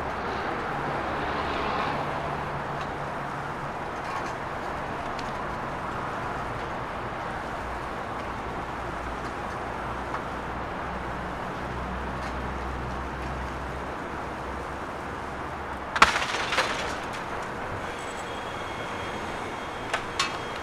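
Demolition machinery engine running with a steady low drone, then a sudden loud crash of breaking building debris about three quarters of the way through, followed by two smaller sharp cracks near the end.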